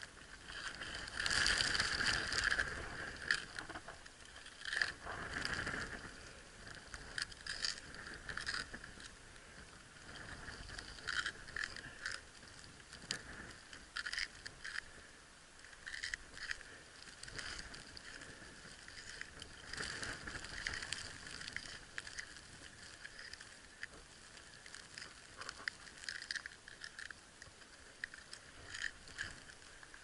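Ice-climbing gear working on snow-covered ice: irregular clicks, taps and scrapes of ice-axe picks and crampons against hard frozen snow and ice, mixed with rustling of climbing clothing. A louder stretch of scraping and rustling comes about a second in, with scattered sharper clicks after it.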